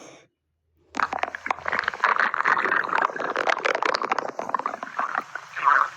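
Stomach growling: after a brief silence, a dense, irregular run of gurgles and small pops starts about a second in and keeps going.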